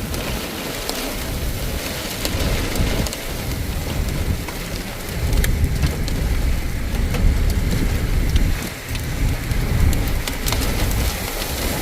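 Very heavy rain and hail pelting down in a steady roar, with many sharp ticks of individual strikes and a low rumble underneath.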